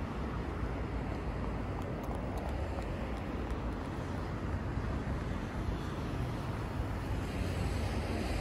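Steady outdoor street noise with a heavy low rumble, typical of passing traffic.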